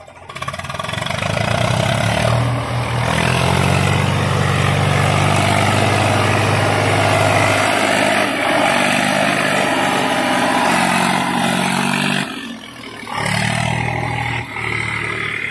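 Eicher 485 tractor's three-cylinder diesel engine running hard under load as it hauls a loaded soil trolley through mud. It rises just after the start, holds steady, dips briefly about twelve seconds in, then picks up again.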